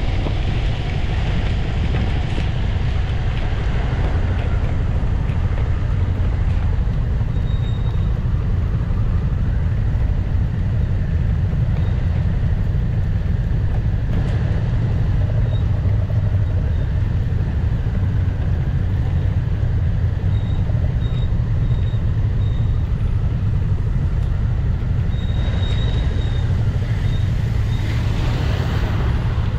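BMW C 400 X scooter's single-cylinder engine running at speed under heavy wind rush on a windscreen-mounted camera, a steady deep rumble throughout.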